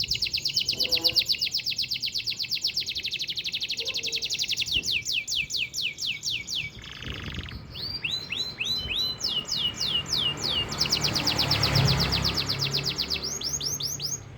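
Domestic canary singing a long rolling song: trills of rapidly repeated falling whistled notes, sometimes very fast and sometimes slower. A rushing noise swells up behind the song near the end.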